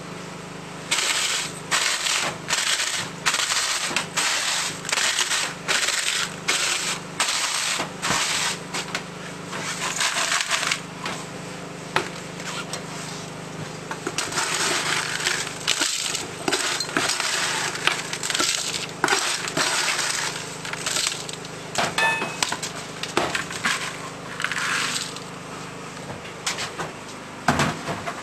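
Cremated animal bone fragments being crushed by hand in a bowl: rhythmic crunching and grating strokes, about two a second, in two long runs with a short pause between. A steady low hum runs underneath.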